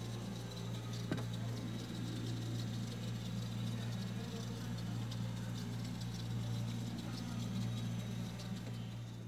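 Refrigerator running with a steady low hum, with one short click about a second in.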